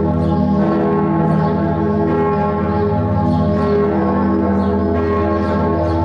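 Bern Minster's church bells ringing in a full peal. Several bells strike over one another about once a second, and their deep ringing hum never dies away between strokes.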